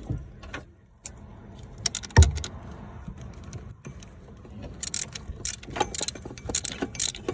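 Metal tools and car parts clinking and rattling during hands-on work in an engine bay, with one heavy thump about two seconds in and a quick run of clinks over the last couple of seconds.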